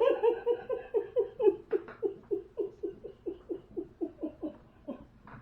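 A pet bird's rapid run of short repeated calls, about four or five a second at an even pitch, fading gradually.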